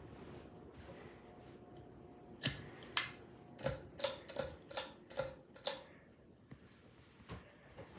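Hunter Oberlin ceiling fan humming faintly, then a run of about eight sharp clicks with a short metallic ring, a little over half a second apart, starting a couple of seconds in.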